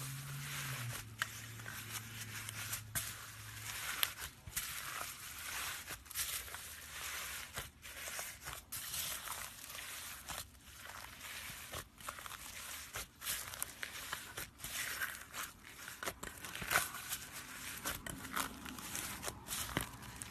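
Crunchy floam slime being squeezed and poked, with the foam beads inside crackling and popping in quick irregular bursts.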